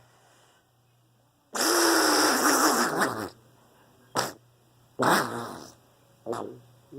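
A woman making a weird noise with her mouth and voice: a long, noisy, fart-like blow of about two seconds with a low tone sliding down under it, followed by three shorter bursts.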